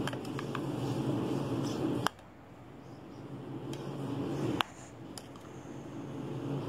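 A spoon stirring parboiled potato cubes with chilli powder in a bowl: a few soft clicks of the spoon against the bowl over a steady low hum, which drops away suddenly about two seconds in.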